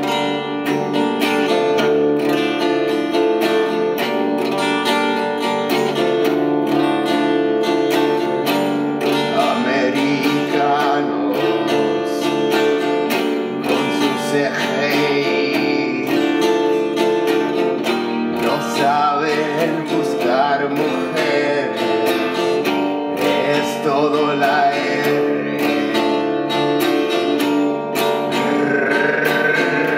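Strummed archtop guitar playing chords, with a man singing a song over it from about ten seconds in.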